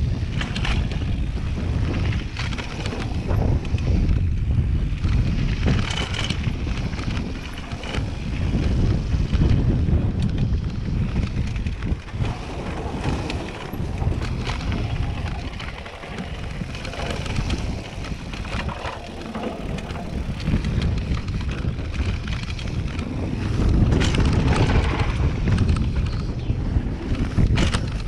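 Wind rushing over the action-camera microphone along with the rumble of a downhill mountain bike's tyres on a dirt and gravel trail, broken by frequent knocks and rattles from the bike over bumps.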